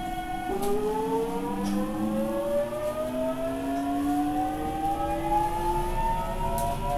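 A JR Central 373 series electric train accelerating away from a station, heard from the deck of its motor car. The VVVF inverter and traction motors whine: a set of steady tones shifts about half a second in, then several tones rise smoothly in pitch as the train gathers speed.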